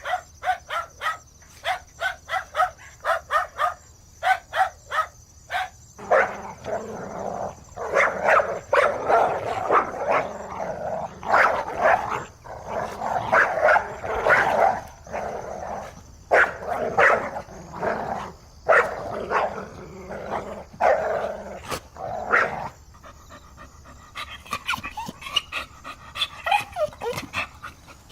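Dog barking: a quick run of short barks about three a second, then louder, more irregular barks, and fainter yelps with sliding pitch near the end.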